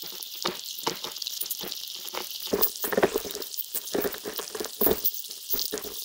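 Underwater crackling: dense, irregular clicks over a steady high hiss, with a few louder clusters of knocks about halfway through and near the end.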